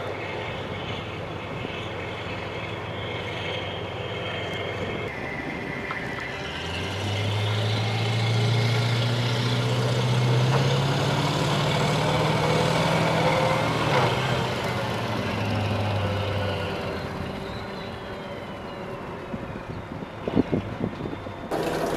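Heavy military vehicle engines running steadily, growing louder through the middle. One passes close about two-thirds of the way through, its pitch dropping as it goes by. A few sharp knocks come near the end.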